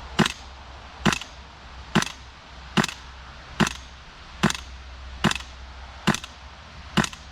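Gas blowback airsoft rifle with an Alyan suppressor kit firing nine single shots into the air, evenly spaced a little under a second apart. Each shot is a sharp, short crack.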